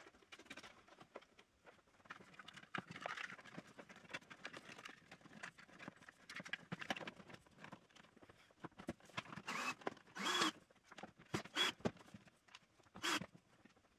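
Faint handling sounds of a table saw being reassembled: irregular clicks, taps and rustles of plastic housing parts and wiring being fitted back in place, with a few louder knocks in the second half.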